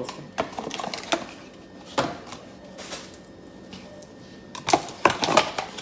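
Small cardboard candle boxes being opened and handled: scattered light taps and clicks, with a quick cluster of them near the end.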